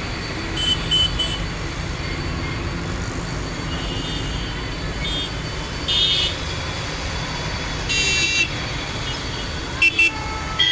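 Road traffic with vehicle horns honking: three quick toots about a second in, then single honks every couple of seconds, over a steady low traffic rumble.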